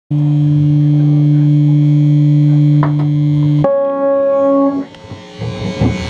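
An electric guitar amplifier holds a loud, steady, distorted drone. About three and a half seconds in it switches abruptly to a higher sustained tone like feedback, which dies away about a second later. A few scattered knocks and thumps follow.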